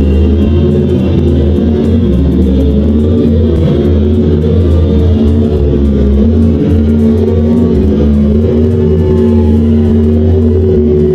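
Background music with guitar and bass, at a steady level.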